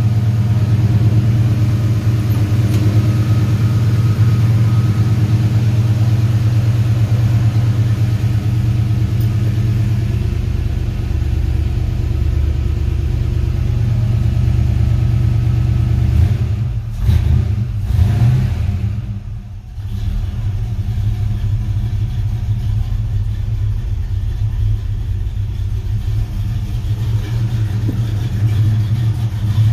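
1955 Chevrolet 210's V8 engine idling steadily, a low even rumble that turns briefly fainter about two-thirds of the way through.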